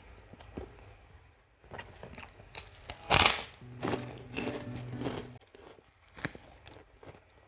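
Eating with the fingers from a paper-wrapped meal: soft clicks and crinkles of rice, fish and paper. About three seconds in comes a loud crackle as a large crisp kerupuk cracker is handled on the paper wrapper.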